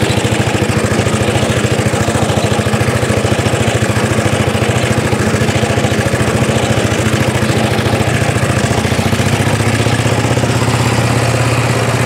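Petrol engine of a vintage 1930s Dennis Z-type cylinder mower running steadily under way, with a fast, even chug.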